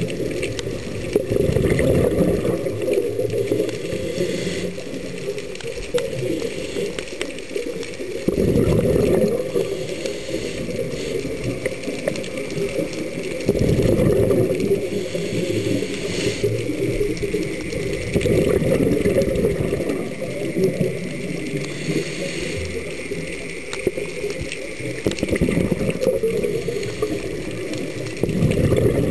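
Scuba diver's regulator breathing underwater: a bubbling gurgle of exhaled air roughly every five seconds, with a steady hiss between breaths.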